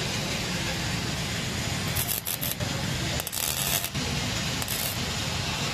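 Stick-welding arc crackling and sizzling steadily as a motorcycle main stand is welded, with a few louder, hissier stretches in the middle.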